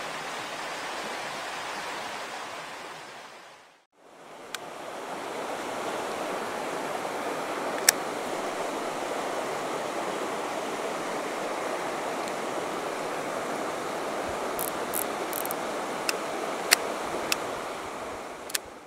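Steady rush of flowing stream water. It fades out and back in about four seconds in, and a few sharp clicks come in the second half.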